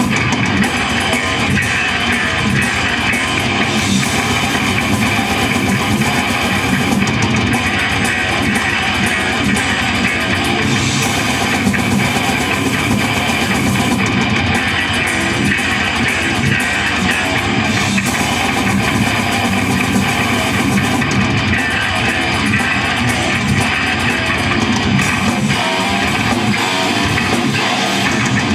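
Live death metal band playing loud and without a break: distorted electric guitars over a drum kit.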